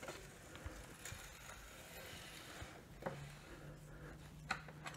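Faint, scattered clicks and knocks of hand tools on the dirt bike's rear axle as it is tightened, with a faint low steady hum starting about three seconds in.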